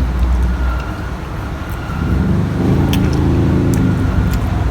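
A steady low engine-like rumble, with a deeper pitched drone swelling for about two seconds in the middle, as of a motor vehicle passing, and a few faint clicks.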